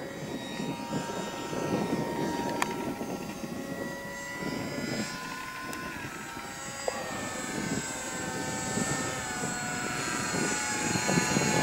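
Multiplex EasyStar 2 RC foam plane's electric motor and pusher propeller whining steadily in flight overhead, with a rough low noise underneath. The whine drifts slightly in pitch and grows louder near the end as the plane comes closer.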